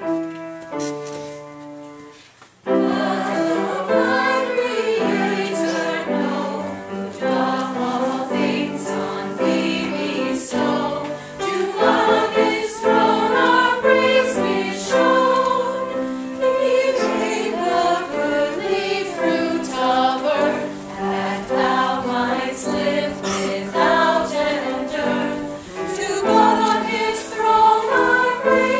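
A few piano notes dying away, then from about three seconds in a group of voices sings a hymn-like song in chorus.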